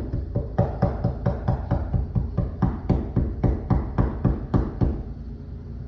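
A rapid, even series of sharp knocks, about four a second, for about five seconds, then stopping.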